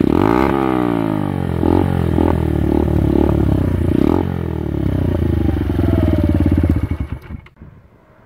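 Keeway TXM 125's single-cylinder four-stroke engine, breathing through an aftermarket exhaust with the dB killer removed, idling and revved in several short blips with the pitch rising and falling back each time. The sound cuts off abruptly near the end.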